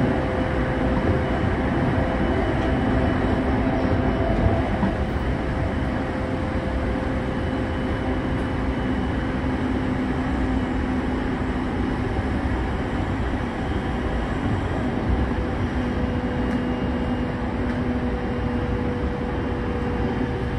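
JR East E231 series 0 commuter train running steadily at speed, heard from inside motor car MoHa E230-18. The wheels rumble evenly on the rails under a steady hum of the traction motors.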